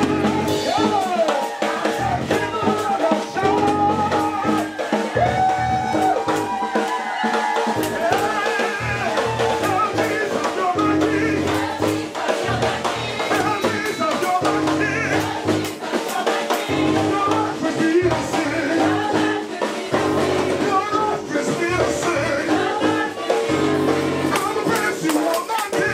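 Gospel praise music: voices singing a melody over a drum kit and a bass line, at a steady level throughout.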